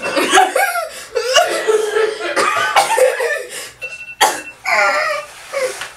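Two girls laughing hard, one of them coughing and spluttering into a plastic gallon water jug as she laughs mid-drink.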